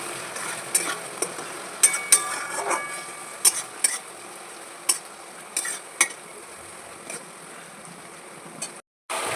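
Chicken pieces sizzling as they fry in a pan, stirred with a utensil that clinks sharply against the pan a dozen or so times, most often in the first half.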